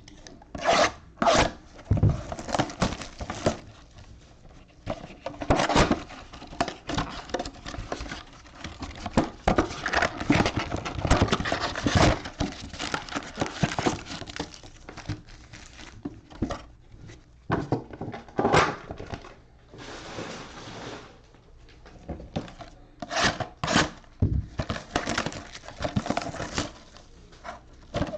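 Trading-card mega boxes being opened by hand: irregular tearing, rubbing and crinkling of shrink wrap and cardboard, with scattered sharp knocks as the boxes are handled.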